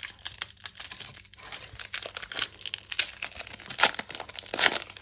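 Foil trading-card pack wrapper being torn open and crinkled by hand, a steady run of crackling crinkles with a couple of louder crackles near the end.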